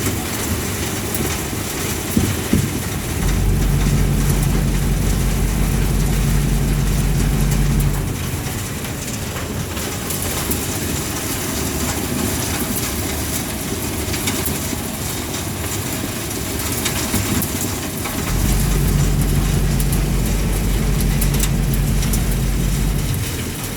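Hot-air furnace and its blower running with a steady noise; a deep low hum starts about three seconds in, drops out around eight seconds, and comes back for several seconds near the end.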